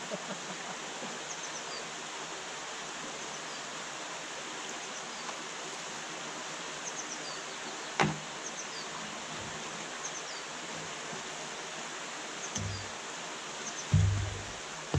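Steady rushing of water over a small canal weir, with birds chirping repeatedly over it. A single sharp knock sounds about halfway through, and a couple of low thumps come near the end.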